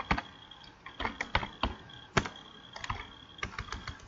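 Computer keyboard being typed on: irregular key clicks in short runs with brief pauses between them.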